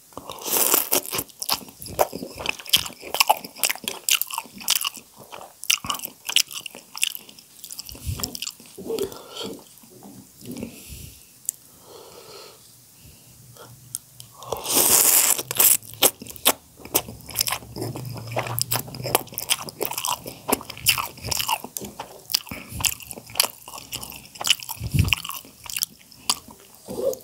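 Close-miked slurping and chewing of soupy instant noodles: a continuous run of wet mouth smacks and clicks, with a longer, louder slurp about fifteen seconds in.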